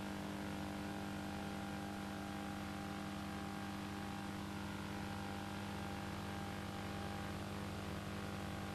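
Steady low electrical hum with even hiss, unchanging throughout, with no speech or distinct events.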